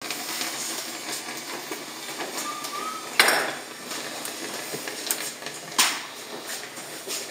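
Two sharp wooden knocks about two and a half seconds apart, each with a short ringing tail, as a long cedar rib strip is handled and laid across a metal-banded canoe form. A short squeak comes just before the first knock, over a steady hiss.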